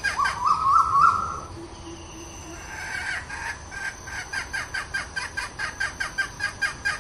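Red junglefowl hen calling: a loud, wavering call in the first second and a half, then a fast, even ticking about four times a second.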